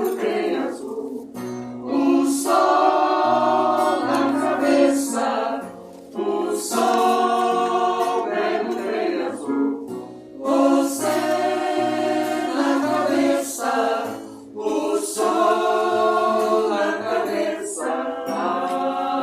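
A choir singing in harmony, several voice parts holding sustained notes together, in phrases separated by brief pauses.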